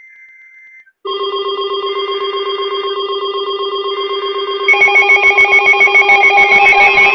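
Weather radio alert alarm: a loud, rapidly pulsing electronic ringing that starts about a second in, after a faint data-burst tone from the alert's digital header. It grows louder and fuller about four and a half seconds in. It signals an incoming warning.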